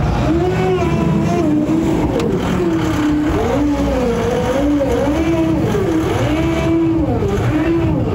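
Fat Truck ATV driving through snow, its small four-cylinder Caterpillar diesel running under load. A whining tone rises and falls over and over as the revs change.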